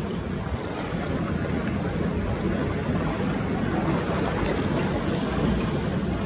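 Wind buffeting the camera's microphone at the seashore, with the steady wash of surf beneath it.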